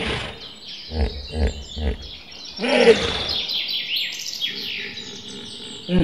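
A large animal's deep, pulsing grunts, then one loud bellowing call a little before the middle, followed by a run of quick, high, falling bird chirps.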